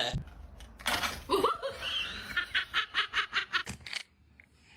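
A person laughing in quick repeated bursts, about four or five a second, that stop near the end.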